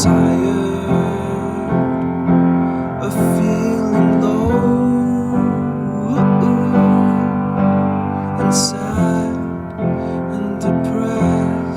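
Background music: a piano or electric-piano instrumental passage without singing.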